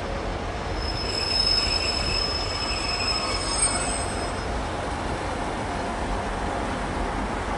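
Arriva Trains Wales diesel multiple unit running over curved track and points, its wheels squealing in high, steady tones from about a second in until about four and a half seconds, over a steady low rumble.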